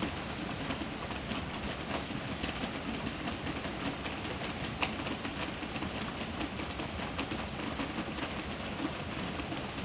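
Heavy rain on the roof: a steady dense patter with many irregular drops, and one sharper tap about five seconds in.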